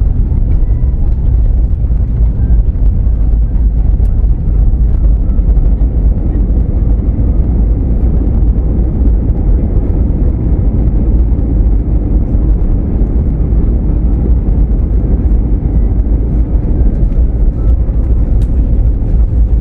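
Airbus A320neo heard from inside the cabin during the landing rollout: a loud, steady low rumble of the aircraft running along the runway after touchdown.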